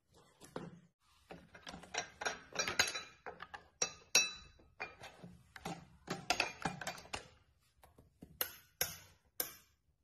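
Irregular clinking, clicking and rattling of a stand mixer's attachments (wire whisk, flat beater and clear plastic pouring shield) being handled and unpacked, ending with three sharp clinks near the end.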